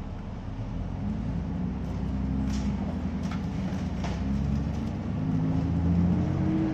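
Bus engine accelerating, heard from inside the passenger cabin. Its drone grows louder about a second in and climbs in pitch, with a few sharp rattles in the middle.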